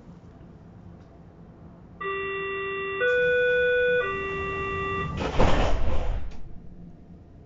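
Door-closing warning signal of a Berlin S-Bahn class 481 train: three steady one-second tones, lower, higher, then lower again. It is followed about five seconds in by a loud noisy burst lasting about a second as the doors shut.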